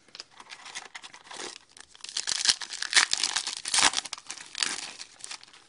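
Hockey card pack's wrapper being torn open and crinkled in the hands, a dense crackling that is loudest in the middle and dies away near the end.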